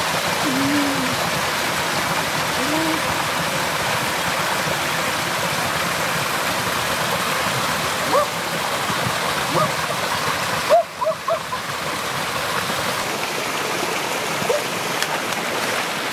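Steady rush and splash of a small waterfall pouring into a rocky stream pool. A few brief chirp-like tones sound around the middle.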